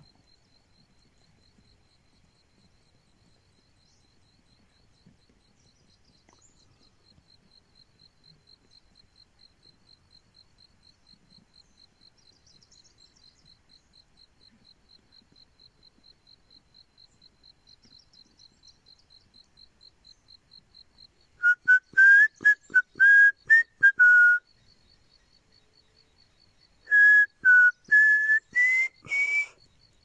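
A faint, steady, high insect trill of rapid pulses. Over it, near the end, come two loud runs of short whistled notes; the second run climbs in pitch at its close.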